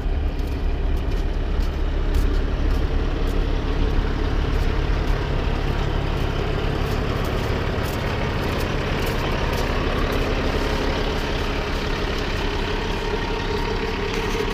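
Heavy truck engine idling with a steady low rumble.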